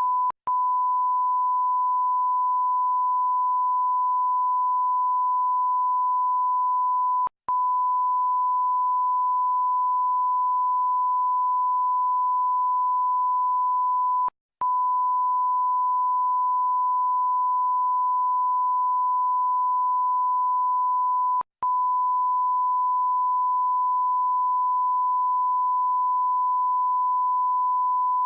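Electronic censor-style bleep: one pure, steady, unchanging high tone held for about seven seconds at a time, cut by a brief break four times.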